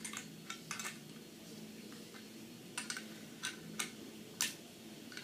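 Sharp, irregular clicks and taps of metal pull-up bar parts and screws being handled and fitted together, about nine in all, in clusters near the start and in the middle.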